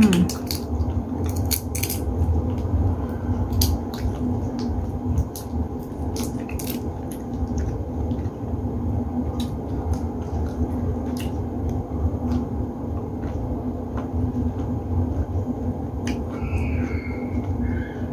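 Eating sounds: whole cooked shrimp being peeled by hand and chewed, a scatter of small clicks and crackles from shells and the plate over a steady low hum.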